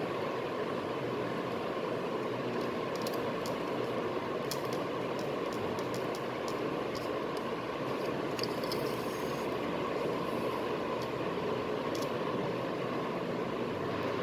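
Steady background noise, even and unchanging, with a few faint, short, high clicks scattered through it.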